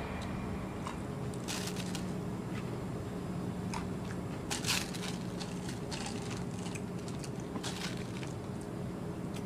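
Steady hum of a jet's cabin in flight, with scattered crunches and clicks as hard-shelled candies are chewed and picked out of a plastic cup, the loudest crunch about four and a half seconds in.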